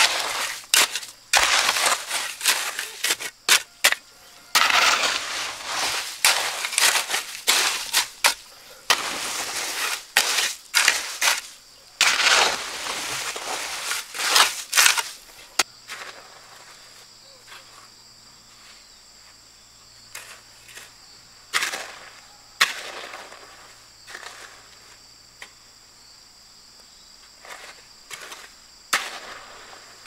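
Shovel scraping into and scooping wet sand-cement mix in repeated rough strokes about a second apart. About halfway through the strokes give way to occasional quieter scrapes and taps over a steady high insect drone.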